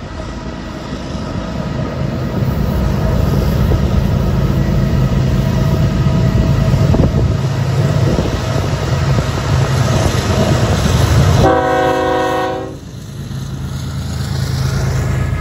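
Diesel locomotives of a loaded BNSF coal train approaching and passing beneath, their engine rumble building over the first few seconds. About eleven seconds in there is a short horn blast of about a second. The sound then dips briefly as the lead unit goes under, and the next locomotive's engine follows.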